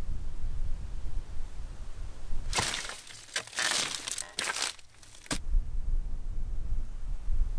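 Wind buffeting the microphone, broken about two and a half seconds in by a run of crunching, cracking strokes as a coa cuts into tough agave leaves, ending in a sharp crack, after which the wind returns.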